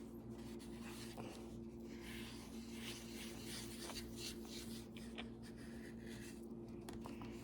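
Faint soft brushing and scraping of a paintbrush working green paint, in short irregular strokes over a steady low hum.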